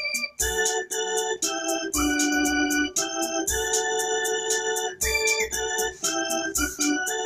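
Electronic keyboard played with an organ voice: held chords that change about every second, over a steady accompaniment beat.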